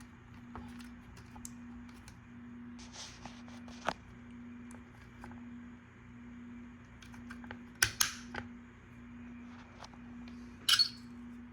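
Small plastic parts being handled and fitted against a plastic control housing: scattered light clicks, with two sharper clacks in the second half, over a faint steady hum.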